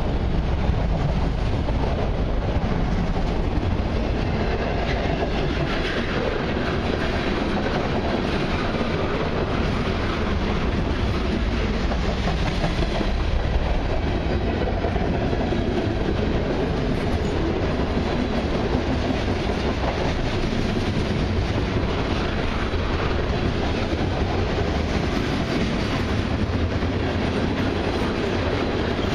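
Freight cars of a long mixed train (autoracks, a centerbeam lumber car, tank cars) rolling past: a steady rumble of steel wheels on the rails.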